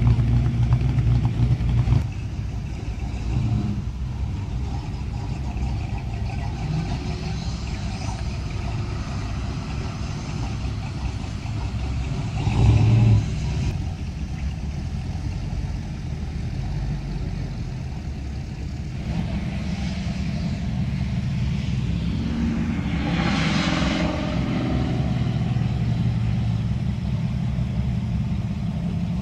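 Cars and trucks driving slowly past one after another, engines running at low speed with tyre noise. About halfway through there is a brief, louder burst of engine noise, and later a vehicle passes close with a swell of noise that rises and falls.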